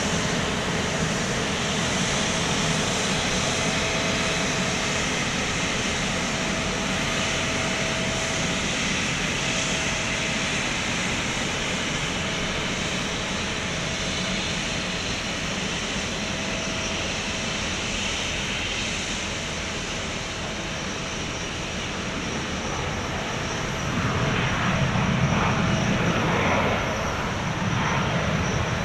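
Airbus A350-900's Rolls-Royce Trent XWB jet engines running at idle: a steady rush with a faint whistle that comes and goes. The sound grows louder for a few seconds near the end.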